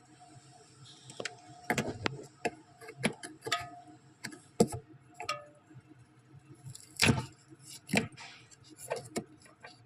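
Ice in a double-door refrigerator's air duct being knocked and broken loose: irregular hard knocks and clicks, some with a short ring.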